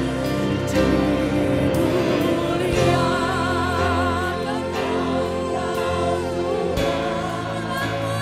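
Live worship band playing a slow gospel praise song, with keyboards, bass and drums under singers. About three seconds in, a singer holds a long note with vibrato.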